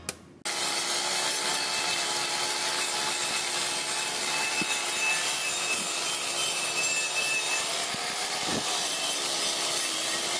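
Electric angle grinder with a wire cup brush scouring the inside of a steel axle differential cover, a steady scratchy rasp over the grinder motor's whine. It starts about half a second in.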